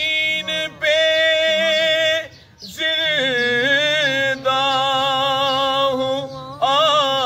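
An unaccompanied male voice recites an Urdu naat in long, drawn-out held notes with wavering ornamented turns. He breaks briefly for breath twice. A low hummed drone from other voices sits beneath.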